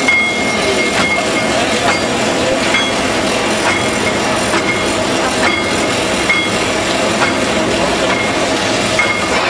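Paper bag making machine running at speed: a steady mechanical clatter with a sharp click and a brief high squeak repeating about once a second as each cycle comes round.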